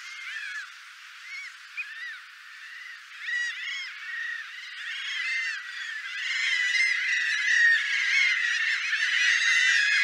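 Grey gulls calling in a flock: many short calls that rise and fall in pitch, overlapping. The calls are sparse at first and build to a louder, dense chorus from about six seconds in.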